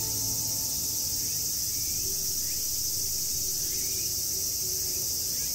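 Steady high-pitched shrilling of an insect chorus, with a few faint short chirps over it.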